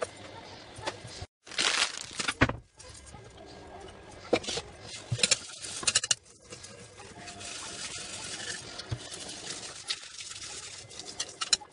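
Pots, pans, lids and a Thermomix's steel mixing bowl clattering and clinking in a stainless-steel kitchen sink as they are washed and moved about. The sound comes in choppy snatches, cutting out completely a few times.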